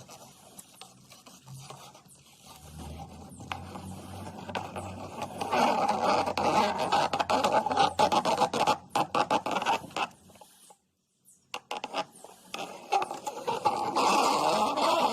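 Rough scraping and scratching in two loud stretches, the first about five seconds in and the second near the end, with a brief near-silent gap between them.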